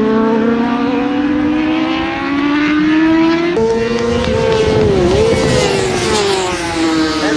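Racing sport-bike engines at high revs, their pitch climbing steadily as the bikes accelerate. A few seconds in the sound changes abruptly to another engine note, which dips briefly and then falls away as the bike passes.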